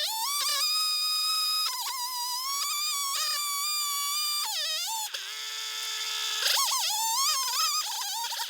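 Jonsered 670 two-stroke chainsaw running under load through a walnut log on an Alaskan chainsaw mill: a high-pitched whine whose pitch keeps dipping and rising as the throttle and cutting load change.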